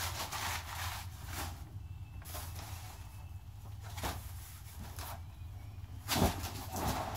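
Irregular rustling and clattering of gear being moved around a cluttered garage, with a louder knock about six seconds in. A low steady hum runs underneath.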